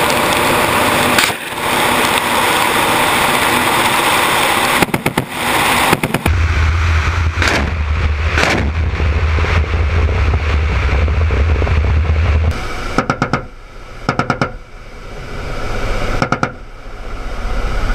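Ka-52 attack helicopter in flight, heard from an onboard camera: steady turboshaft engine and coaxial rotor noise with wind rush, broken several times by short bursts of rapid bangs as its weapons fire.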